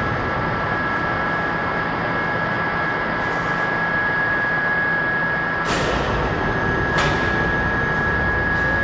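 Steady workshop machine noise with a constant high-pitched whine, broken by two sharp knocks a little over a second apart past the middle.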